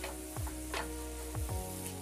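Onion, tomato and green chilli frying in oil in a non-stick pan, sizzling as a spatula stirs and scrapes them. Background music with low beats about once a second plays under it.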